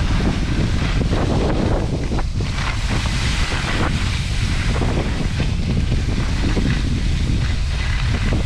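Wind buffeting the microphone of a moving skier's camera, over the steady hiss and scrape of skis sliding on groomed snow; the snow hiss swells for a second or so about three seconds in.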